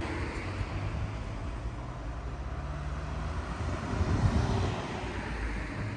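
Car engine running steadily, with a brief swell in loudness about four seconds in.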